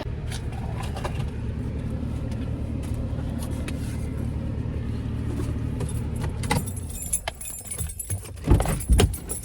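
Steady low rumble of a car on the road, heard from inside the car, giving way near the end to a few clicks and louder thumps.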